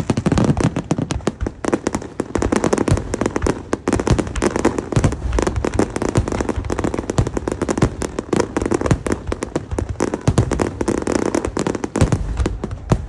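Fireworks barrage: many aerial shells bursting in quick succession, a dense, unbroken string of bangs and crackles.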